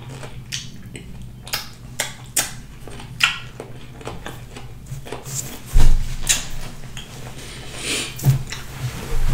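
Eating and table-handling sounds: a string of short wet clicks and taps from chewing and handling dishes, with a louder thump about six seconds in and another near the end, over a steady low hum.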